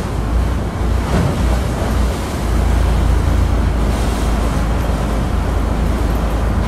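Wind buffeting the microphone: a steady low rumble with a rushing noise over it.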